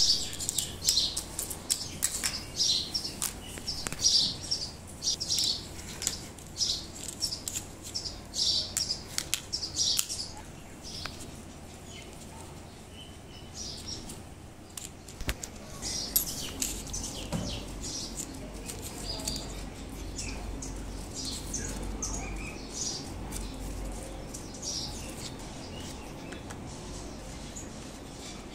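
Plastic interlocking building blocks clicking and clattering as they are pressed together and moved about on a stone tabletop, among many short high chirps that come thickest in the first third and again in the second half.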